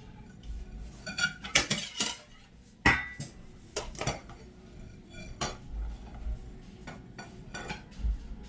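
Small metal parts and tools clinking and tapping against each other while an épée point is being worked on. There is a cluster of sharp clinks about a second in, the loudest clink a little before three seconds, then scattered lighter taps.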